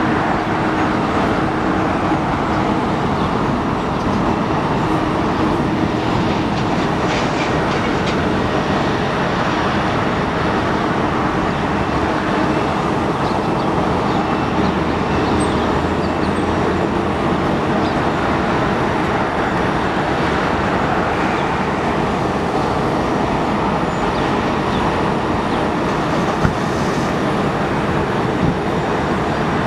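Steady roar of airliner jet engines running at taxi power, an even rumble with no breaks.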